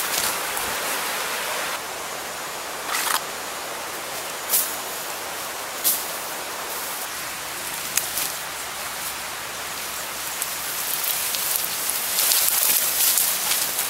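Steady hiss of water in the rainforest, swelling a little near the end. A few short swishes of ferns and leaves brushing past are heard over it.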